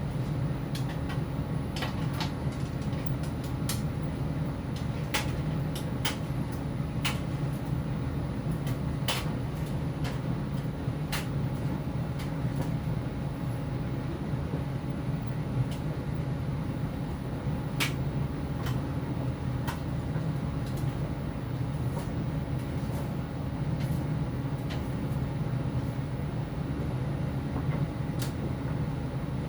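Electrolux PerfectCare 800 condenser tumble dryer running: a steady low hum from the turning drum, with scattered light clicks, typical of buttons or fasteners knocking on the drum as the laundry tumbles.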